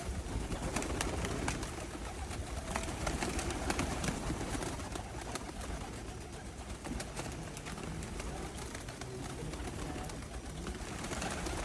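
A flock of pigeons cooing while being fed, with many short sharp clicks and taps mixed in.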